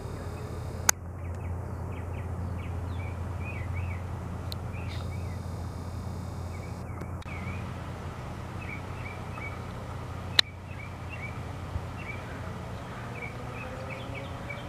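A camera's zoom motor whirring in two runs, one near the start and one lasting about two seconds midway, as the lens zooms in, with small birds chirping throughout over a steady low hum. Two sharp clicks, one about a second in and one about ten seconds in.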